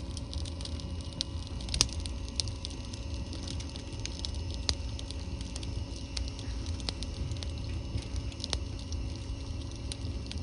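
Oak firewood burning, crackling and popping at irregular intervals over a low steady rumble.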